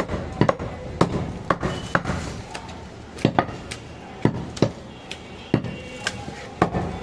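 Goat meat being chopped by a butcher: a run of sharp, irregular chops, about one or two a second.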